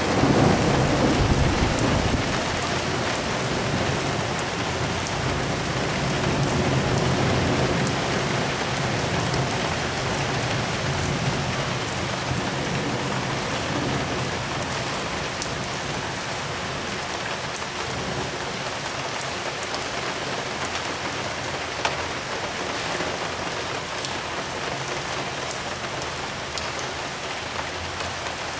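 Heavy rain falling steadily, with individual drops ticking on nearby surfaces. A low thunder rumble is loudest in the first couple of seconds, swells again briefly, then fades away.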